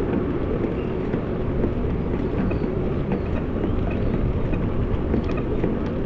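Steady low rumble of wind on the microphone and tyre noise from a bicycle being ridden, with a few faint ticks.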